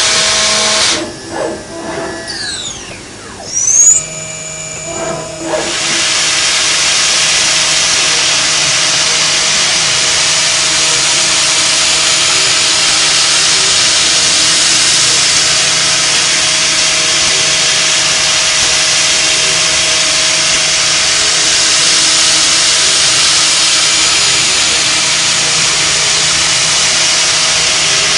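CNC milling machine running. Its noise drops about a second in, with pitch sliding down and then up, and a sharp loud knock about four seconds in. From about six seconds on it settles into a steady hissing machining noise with a faint steady hum.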